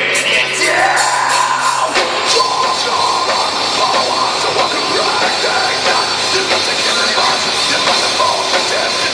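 Live heavy rock band playing loud, with a held low note, then the full band crashing in about two seconds in.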